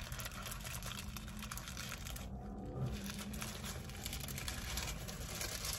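Paper sandwich wrapper crinkling in the hands while a fried chicken-and-waffle sandwich is bitten into and held. A low steady hum runs underneath.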